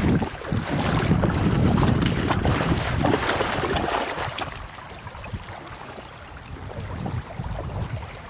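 Water sloshing and splashing, with wind buffeting the microphone. It is loud for the first four seconds or so, then quieter.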